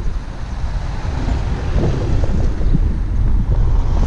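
Wind buffeting the camera's microphone: a steady, loud low rumble.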